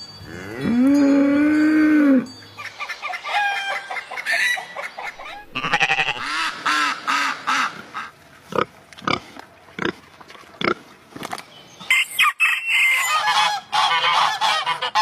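Farm fowl calling, mainly geese honking in short repeated calls, in irregular bouts. It opens with one long drawn-out call of about two seconds.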